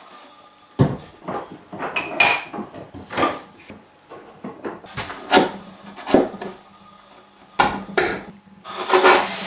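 Knocks and scrapes of a heavy wooden board being shifted and set against a workbench. Near the end comes a longer scraping as a chisel pares wood out of a mortise.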